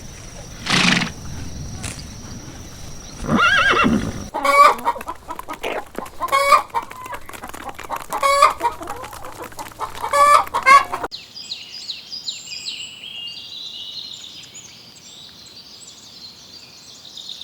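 Chickens clucking, a few loud calls a second or two apart. First comes a stretch with two louder animal calls; from about eleven seconds in, high thin chirping takes over.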